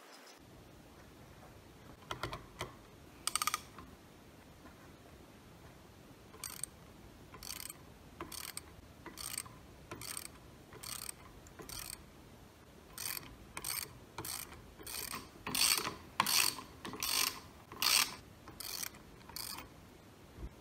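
Socket ratchet wrench clicking in short runs, about one a second, as it turns the centre bolt of a homemade blind-hole bearing puller to draw a jammed bearing out. The runs are loudest past the middle.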